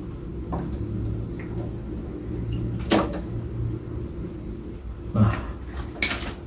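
Clear plastic jars and lids being handled: a screw lid twisted off and the pieces set down, giving four short sharp plastic clicks and knocks, the loudest about three seconds in, over a steady low hum.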